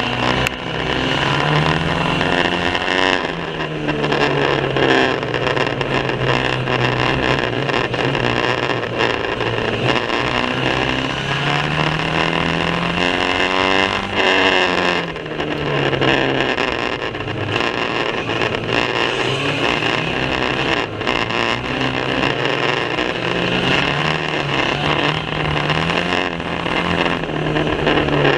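Banger racing car engine revving hard, its pitch repeatedly climbing and then dropping back as it accelerates and lifts off, under heavy mechanical and track noise. The recording is poor quality.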